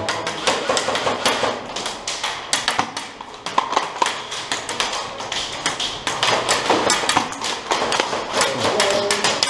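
Airsoft gunfire and BBs striking hard surfaces: a dense run of sharp, irregular taps and clicks.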